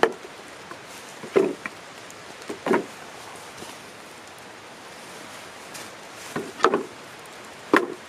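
Hand-split wooden roof shingles knocking against each other as they are set down on a criss-cross stack. About six irregular wooden clacks, with a pause of about three seconds in the middle.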